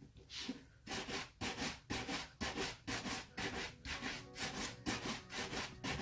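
Bristle shoe brush buffing a polished leather shoe in quick back-and-forth strokes, about three a second, after a short pause near the start. This is the final brushing that brings the shine cream up to a gloss.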